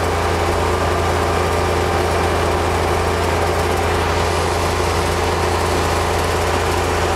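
John Deere X595 lawn tractor's engine running steadily under load while its 47-inch front snow blower throws snow, heard from behind the windshield of the tractor's cab.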